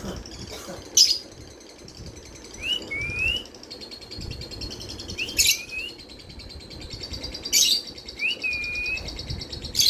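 Pet lovebirds chirping: sharp high chirps every couple of seconds, with short whistled notes that rise and then hold, over a faint steady high pulsing tone.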